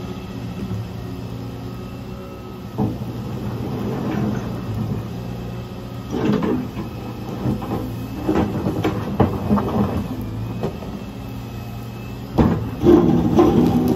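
Volvo ECR145 Electric excavator working: a steady electric-hydraulic hum runs under the scraping and clattering of its steel bucket tearing up and pushing broken asphalt. There is a knock about three seconds in, scrapes and clunks through the middle, and the loudest crunch of slabs near the end.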